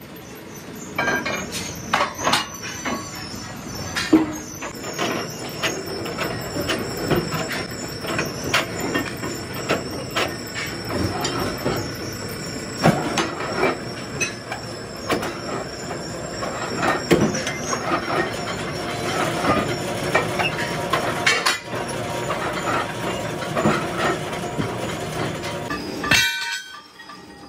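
Pillar drill's twist bit cutting holes in a mild-steel truck wheel rim plate: a steady high squeal under irregular metallic clatter and scraping. The sound drops off abruptly shortly before the end.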